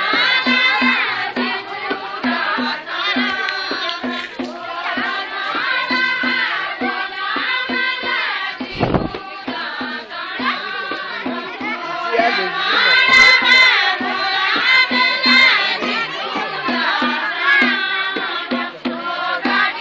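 A Kumaoni jhoda-chanchari folk song sung in chorus by a group of villagers, with a drum keeping a steady beat under the singing.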